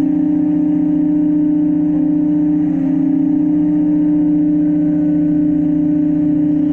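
Heavy diesel engine of a log-handling machine running steadily under load, with a strong constant hum and no change in revs.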